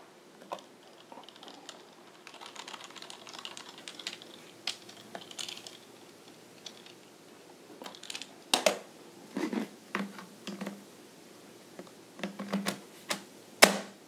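Faint scratchy clicks of a small screwdriver working the bottom-cover screws of an Acer Aspire One 722 netbook, then a run of sharp plastic clicks and knocks about halfway through, as the battery pack is pushed back in and the laptop is handled.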